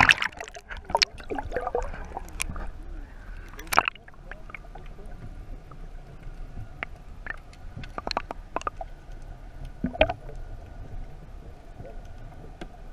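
Water splashing and sloshing at first, then the muffled sound of water heard with the microphone under the surface: scattered sharp clicks and pops over a faint steady hum.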